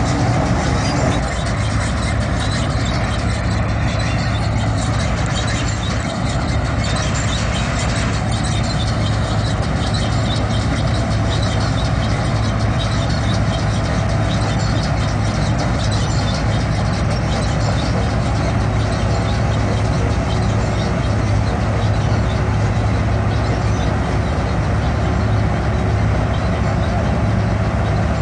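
Punni groundnut combine harvester running steadily under load as it picks up and threshes windrowed groundnut plants: constant engine and machinery noise with a strong low hum.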